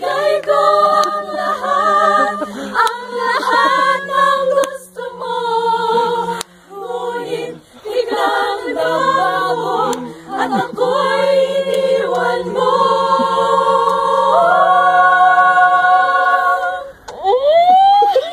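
A group of women singing a cappella in harmony without accompaniment, the voices moving through a melody and ending on a long held chord near the end.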